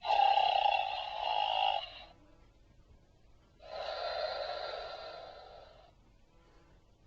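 A toy voice box playing a recorded snoring sound: a loud snore lasting about two seconds, then a pause, then a softer snore that fades away.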